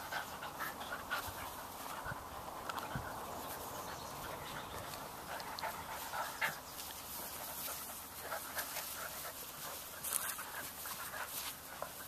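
Chinook puppies play-fighting, with many short puppy vocalisations and panting scattered throughout.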